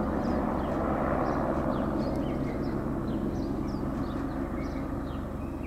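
Air ambulance helicopter's rotor and engine running steadily overhead with a low pulsing beat, slowly fading as it circles. Repeated short high chirps sound over it.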